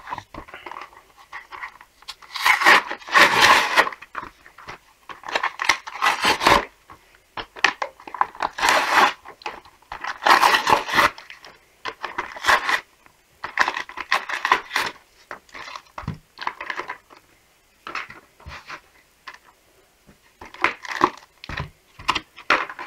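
Stiff plastic blister packaging being pried and torn open by hand, with irregular bouts of crackling and crinkling and a few sharp snaps.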